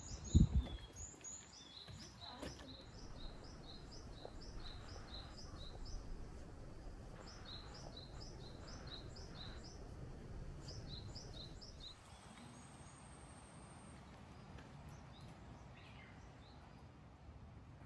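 A songbird repeating quick series of short, high chirping notes in several bouts, over low outdoor background noise. A loud thump sounds just after the start, and a thin high steady tone runs for about two seconds later on.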